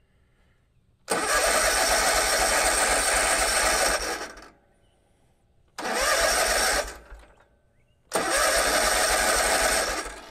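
Kubota Z122R zero-turn mower's engine cranked on the starter in three tries, of about three seconds, one second and two seconds, without staying running. It is starved of fuel: the fuel pump is not pumping and the new fuel filter is dry.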